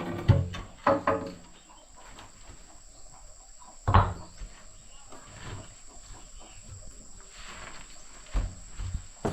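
About five separate sharp knocks, spaced irregularly, the loudest about four seconds in, over a steady high trill of crickets or other insects.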